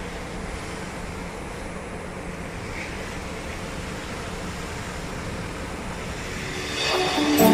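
Steady outdoor wind and harbour noise with a faint low hum underneath; music comes in near the end.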